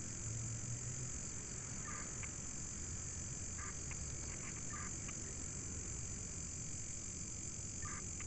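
Night outdoor ambience: a steady high-pitched drone of insects, with a few short calls about two seconds in, several more around four to five seconds, and one near the end.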